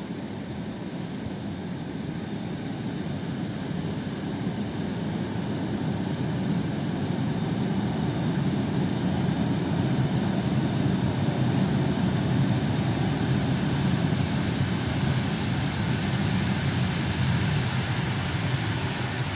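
ЭП2Д electric train running in toward the station platform: a steady rumble of its wheels and running gear on the rails that grows louder over the first half as it draws near, then holds.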